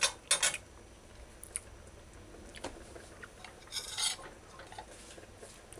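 Metal spoon and cookware clinking and knocking: two sharp clinks at the start, then a few faint clicks and a brief soft noise about four seconds in.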